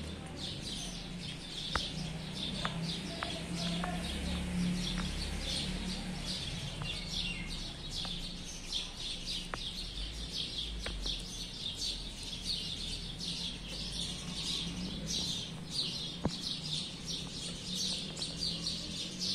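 Small birds chirping continuously in a dense, rapid chatter, with a few faint sharp knocks in between.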